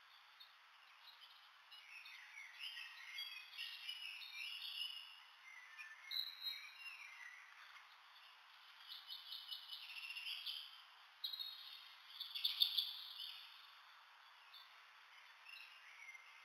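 Night forest ambience: faint, high chirping and rapid trilling calls of small night animals over a steady hiss, with the loudest bursts of trilling about two-thirds of the way through.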